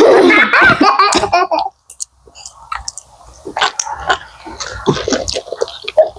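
Chewing and smacking mouth sounds close to the microphone, a run of short wet clicks, after a brief loud stretch of voice in the first second and a half.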